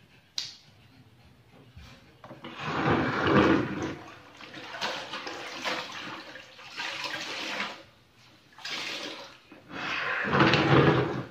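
Water sloshing and splashing in a bucket as a cloth is dunked and wrung out by hand, in five bursts of one to two seconds each. A sharp click sounds about half a second in.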